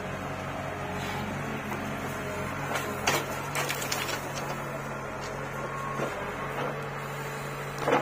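Bull backhoe loader's diesel engine running steadily as the backhoe works. About three seconds in, a bucketful of soil and stones clatters into the steel tractor trolley, and there is a sharp knock near the end.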